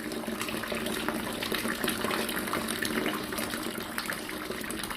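Water running steadily from a fountain, a continuous splashing trickle.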